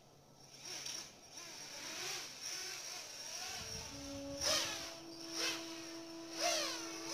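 6S FPV quadcopter's brushless motors whining and revving up and down, with three sharp throttle punches about a second apart in the second half. Steady held tones come in about four seconds in.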